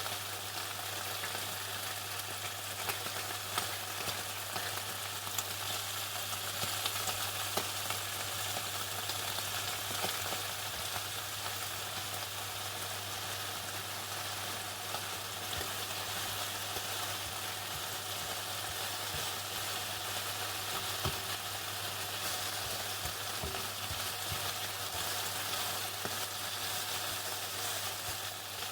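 Chicken frying in hot oil: a steady sizzle with scattered crackles and pops, over a low steady hum.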